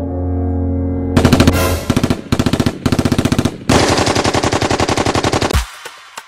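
Machine-gun fire sound effect: rapid bursts of shots at about a dozen a second, in three runs with brief breaks. The fire follows a steady low hum in the opening second and stops shortly before the end.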